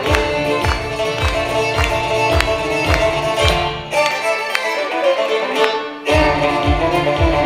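Live folk fiddle tune played by two fiddles and a five-string banjo, with a steady low thumping beat under it. The beat drops out for about two seconds past the middle, then comes back in strongly.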